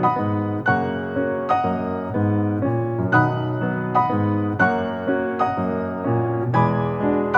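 Background music: solo piano playing a slow, gentle melody, a new note or chord struck about every three quarters of a second.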